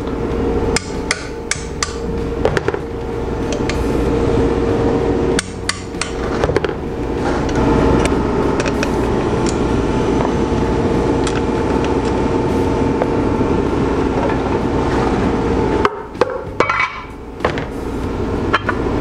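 Pneumatic wrench running in long steady stretches while undoing the bolts that hold the compressor housing on a Garrett turbocharger, with sharp metal clicks and knocks where it pauses, twice.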